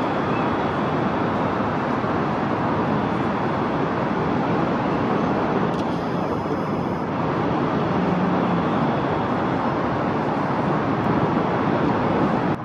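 Steady, dense city traffic noise, an even hum without distinct events.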